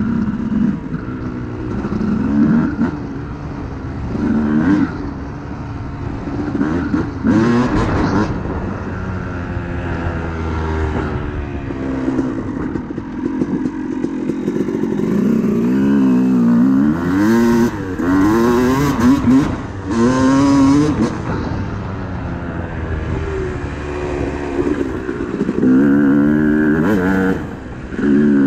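Yamaha YZ250 single-cylinder two-stroke dirt bike engine, fitted with a 13 oz flywheel weight, revving up and falling back again and again under changing throttle.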